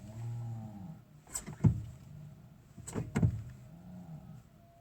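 A small electric motor in the car whirs briefly twice, rising and falling in pitch, with sharp clicks in between. It comes amid the Prius V's electrical fault, where the instruments and interior light blink and the car will not power on.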